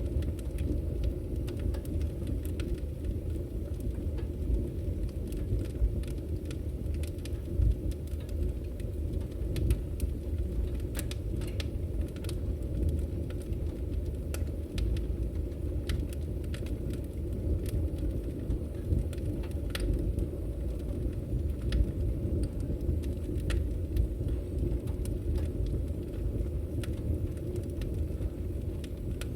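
Fire burning in a fireplace: a steady low rumble with many irregular, sharp crackles and pops.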